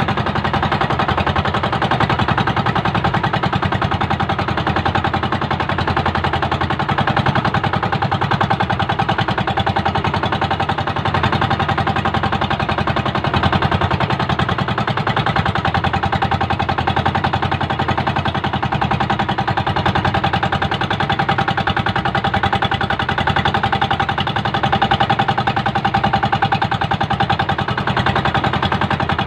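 Engine of a motorized outrigger boat running steadily while under way, a rapid, even beat of firing pulses.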